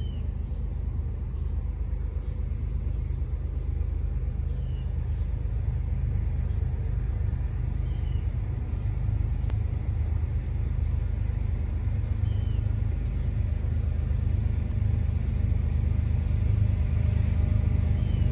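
Low, steady rumble of an approaching Union Pacific freight train's diesel-electric locomotives, coming in on dynamic brakes, growing slowly louder.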